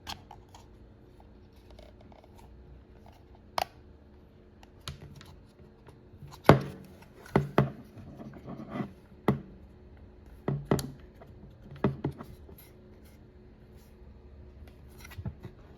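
Scattered clicks, knocks and scrapes of a car trunk latch actuator being handled and worked into its mounting while the bolt holes are lined up, with a busier run of louder knocks from about six to twelve seconds in.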